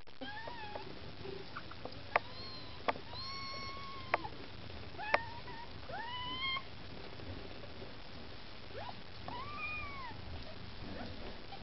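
Young Maine Coon kittens mewing as they nurse: about six thin, high mews, several rising in pitch and one arching up and down near the end. A few sharp clicks come between about two and five seconds in.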